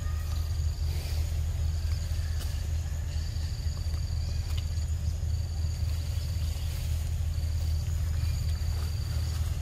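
Insects calling, a high thin buzz repeated in phrases about a second long with short gaps, over a steady low rumble.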